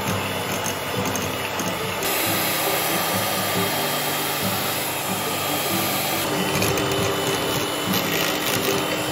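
Electric hand mixer running steadily, its twin beaters churning thick chocolate cookie batter of creamed butter, sugar and cocoa.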